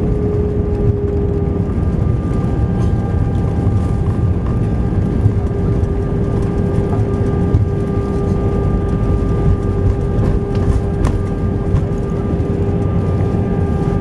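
Airbus A320 rolling along the runway after touchdown, heard inside the cabin: a steady low rumble of engines and wheels with a steady engine whine over it, and a couple of faint clicks.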